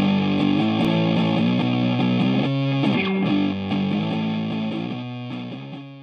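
Intro music led by electric guitar, fading out near the end.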